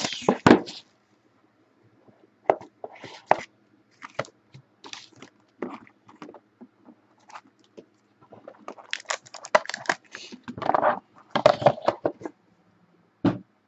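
Clear plastic shrink wrap being torn and crinkled off a sealed Panini Court Kings hobby box of trading cards, in irregular crackling bursts. A short thump near the end.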